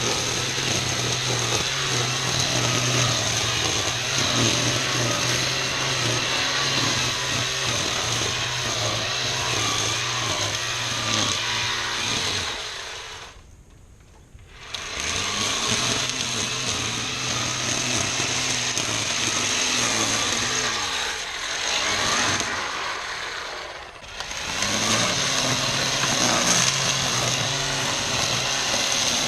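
ECHO 58-volt cordless string trimmer (Pro-Torque attachment on the PAS power head) running at full speed with its line cutting through tall weeds and grass. About thirteen seconds in it winds down almost to a stop and spins back up a second or two later; a few seconds before the end it slows again and revs back to full speed.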